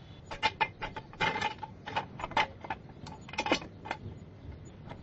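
Irregular run of sharp clicks and clacks, about a dozen over four seconds, of hard objects being handled; some have a short ringing tone.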